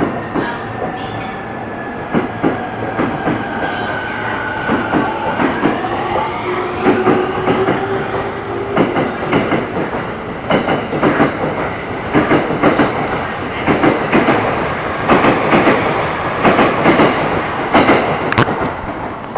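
Electric multiple-unit train at a station. Its motor whine falls gently for the first few seconds, then rises in pitch from about six seconds in as the train gathers speed. The wheels clack over rail joints more and more often toward the end.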